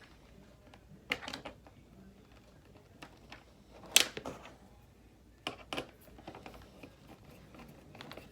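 Scattered small clicks and knocks of a plastic hockey helmet and visor being handled while the visor's side screws are lined up and fastened, the sharpest click about four seconds in.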